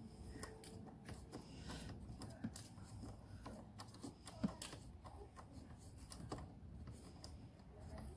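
Faint, irregular clicks and taps of a small hand screwdriver turning a screw into the plastic panel through a stainless steel cup-holder bracket, with the parts knocking lightly as they are handled.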